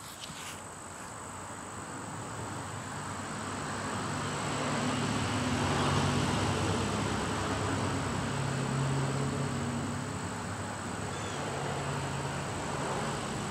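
A distant engine's low hum that swells to its loudest about halfway through and slowly fades, over a steady thin high-pitched drone.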